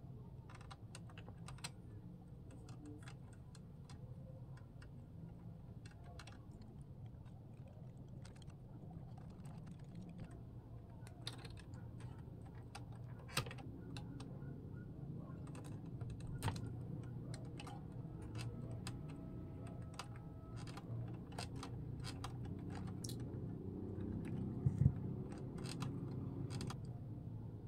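Faint scattered clicks and ticks of small hand tools and wires being handled while rewiring a transformer: side cutters snipping wire and leads being bent and twisted, with a few sharper snips about halfway through and a louder knock near the end. A low steady hum runs underneath.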